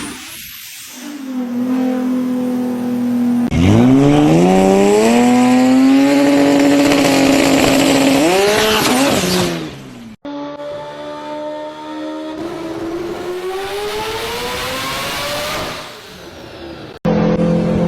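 A run of short clips of tuned performance car engines: one holding a steady high idle, then an engine revved up from low, held high and dropped back, then another car's engine pitch rising steadily under acceleration, each cut off abruptly for the next.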